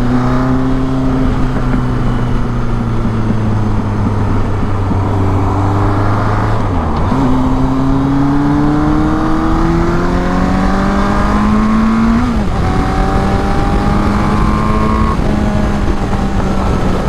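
1983 Suzuki GS1100E's inline-four engine under way: its note holds steady, dips with a gear change about seven seconds in, then climbs as the bike accelerates. It breaks again with another shift about twelve seconds in and then runs steady.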